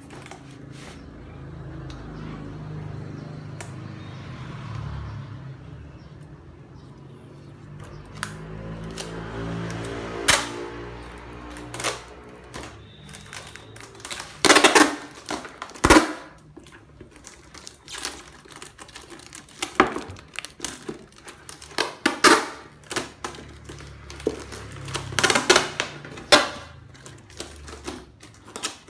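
Brown packing tape being pulled off its roll and pressed around the rim of a ribbed black plastic plant pot: a drawn-out, wavering unwinding in the first half, then a series of short, loud rips in the second half.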